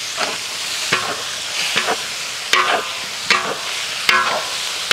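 A metal spatula stirs and scrapes minced meat around a hot wok while it sizzles. The scrapes come about once every three-quarters of a second, and each rings briefly off the wok.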